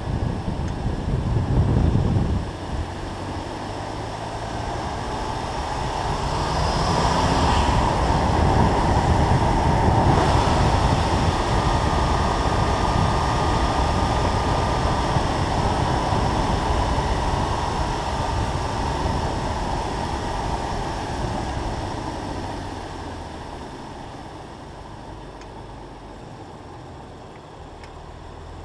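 BMW M2 Competition's twin-turbo straight-six driving on a wet road, heard from a camera mounted outside the car: a steady rush of wind and road noise with the engine underneath. It swells for a long stretch and dies down near the end.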